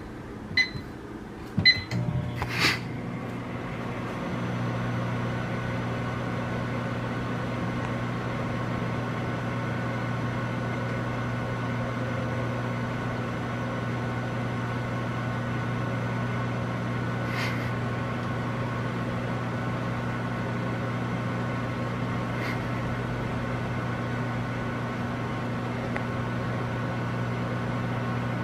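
Whirlpool microwave oven: keypad beeps twice, a click as it starts, then it runs with a steady low hum. A few faint ticks sound over the hum later on.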